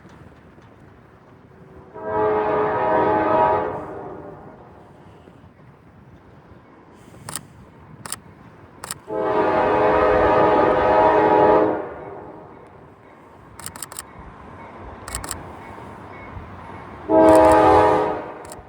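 Locomotive air horn of CFE 4036 sounding three blasts. The first lasts about two seconds, the second, the longest, nearly three, and a short one comes near the end. A low steady rumble and a few sharp clicks fill the gaps.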